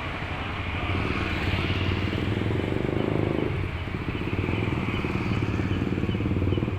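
Road traffic passing steadily, mostly private cars with their engines running. One vehicle grows louder from about two seconds in and falls away suddenly about three and a half seconds in.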